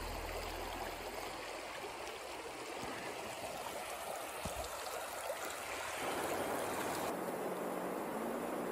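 Bitterroot River water running over shallow riffles, a steady rush that steps up slightly about six seconds in.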